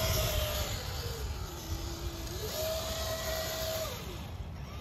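Electric whine of an RC crawler truck's Castle 1412 3200KV brushless motor and gearbox, running on a 3S LiPo in low gear. The pitch holds high, drops to about half about two seconds in as the throttle eases, climbs back up and holds, then winds down near the end.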